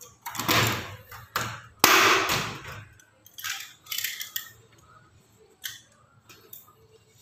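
Metal clanks and scrapes of locking C-clamp pliers being handled and worked loose from an aluminium sliding-door frame, with one sharp knock about two seconds in, then fainter scattered taps.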